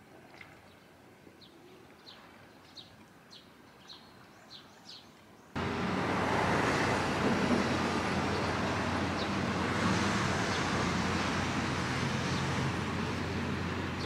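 A small bird gives a string of short, high chirps over quiet outdoor ambience. About five and a half seconds in, the sound cuts suddenly to much louder, steady street noise with road traffic.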